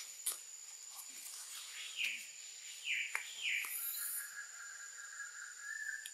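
Three short, falling, high-pitched animal calls about two to three and a half seconds in, then a longer level call held for about two seconds, over a steady high insect drone.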